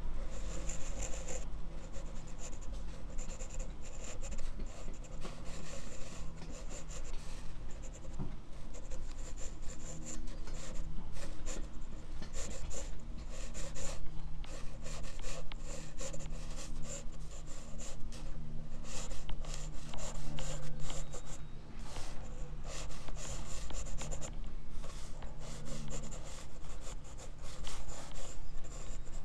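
Graphite pencil scratching and rubbing on drawing paper in many quick, irregular short strokes, close to the microphone, over a steady low hum.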